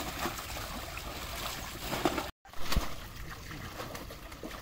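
Pond water splashing and trickling as a fishing net full of farmed fish is worked, with a few sharper splashes. The sound cuts out for a moment about halfway through.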